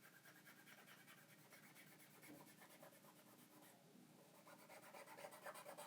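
Near silence with faint rubbing on the phone's frame as leftover adhesive is wiped off with alcohol; it grows a little louder near the end.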